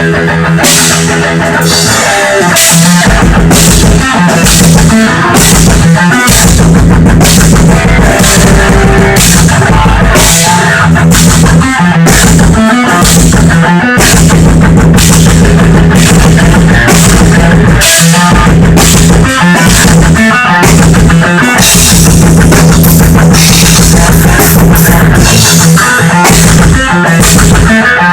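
Instrumental rock played live in a rehearsal: loud distorted electric guitar over a full drum kit with steady cymbal and drum hits, no vocals or bass. The guitar plays alone for the first couple of seconds before the drums come in.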